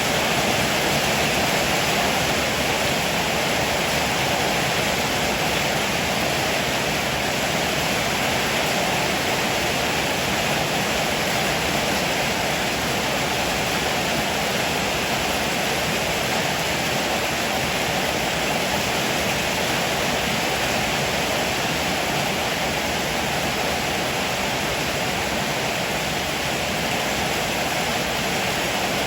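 Heavy rain falling steadily on a roof, a dense, even hiss with no breaks.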